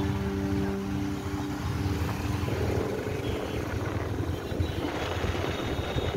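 Motorbike riding through city traffic: wind buffeting the microphone in a fluttering low rumble, over engine and road noise.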